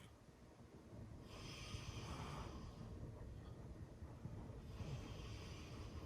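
Golden retriever snoring in its sleep: two slow, quiet snoring breaths about three and a half seconds apart.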